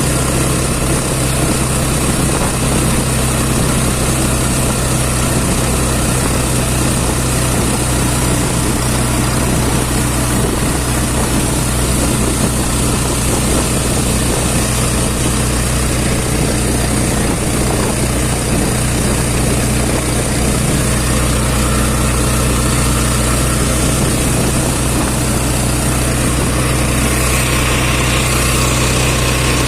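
Vehicle engine running steadily with a constant low hum, heard from on board while travelling, mixed with a steady rushing road or wind noise.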